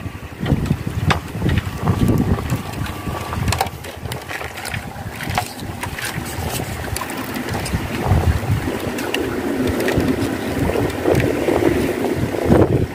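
Wind buffeting the microphone over open sea, a gusting rumble, with the sea washing in the background and scattered small knocks and clicks.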